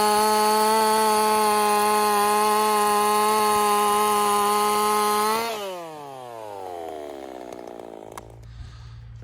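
Ported two-stroke Husqvarna 50 chainsaw, fitted with a Partner 5000 top end, running flat out at a steady high pitch. About five and a half seconds in, the pitch falls away steadily as the engine slows and dies out, followed by a single click.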